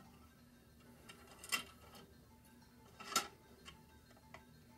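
Handling noise from a VHS cassette being picked up and turned toward the camera: a few light plastic clicks and knocks, the two loudest about a second and a half and three seconds in, over a faint steady hum.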